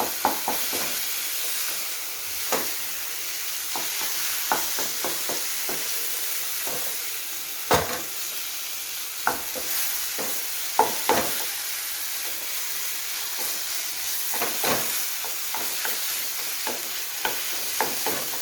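Dal and plantain-flower usli sizzling steadily as it is stir-fried in oil in a pan, with a spatula scraping and knocking against the pan at irregular moments. The mixture is being roasted toward a crisp, browned layer on the bottom.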